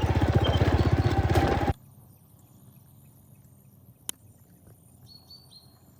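Motorcycle engine running with an even, rapid pulse, cut off abruptly a little under two seconds in. Quiet outdoor ambience follows, with one sharp click and a few faint high chirps near the end.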